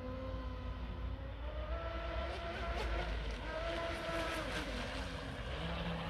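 Radio-controlled speedboat's motor whining as it runs across the pond, its pitch rising and falling as the throttle changes, over a steady low rumble.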